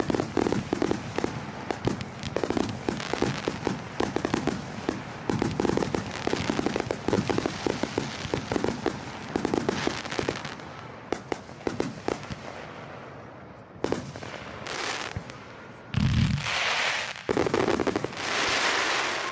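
Fireworks going off, a rapid stream of crackling pops for the first half, then thinning out into separate bursts. There is a deep boom about sixteen seconds in, and longer hissing bursts follow near the end.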